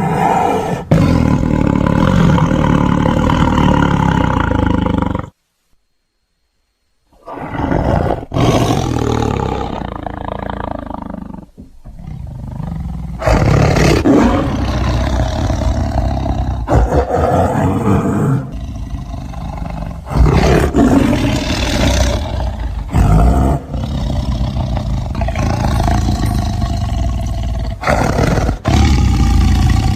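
Tiger roaring repeatedly, in a string of abruptly cut-together clips, with a brief silent gap about five seconds in.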